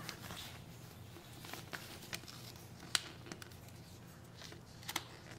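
Protective plastic film being peeled off a smartphone and handled: faint, scattered crackles and clicks, with one sharper click about three seconds in.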